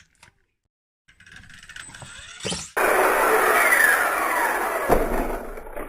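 Small electric RC car's motor and gears whirring loudly after about a second of near silence, the whine falling steadily in pitch as the throttle comes off, with a single knock near the end.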